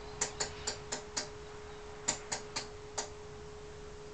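About nine sharp clicks in two quick runs, stopping about three seconds in, from an oscilloscope's rotary switch being turned through its detents. Under them a faint steady 400 Hz test tone plays from the valve radio's speaker.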